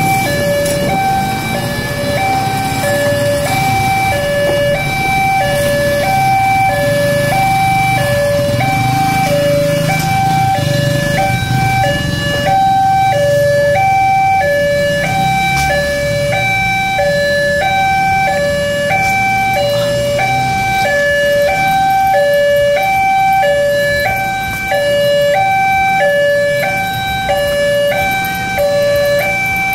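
Indonesian railway level-crossing warning alarm sounding continuously, a loud electronic two-tone signal with high and low tones alternating evenly, each lasting under a second. It is the warning that a train is approaching the crossing. Road traffic engines hum underneath in the first half.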